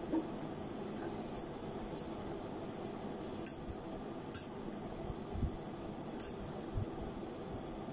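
Metal fork and spoon clinking lightly against a stainless-steel bowl of noodles, a few soft scattered clicks over a steady low background hum.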